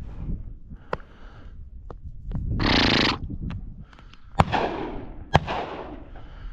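Two hunting shotgun shots about a second apart, each trailing off in an echo, fired at a partridge. A loud rushing burst comes about a second and a half before them.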